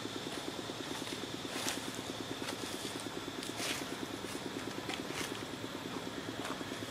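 A small engine idling steadily: a rapid, even low throb, with a faint high steady hum behind it and a few small clicks.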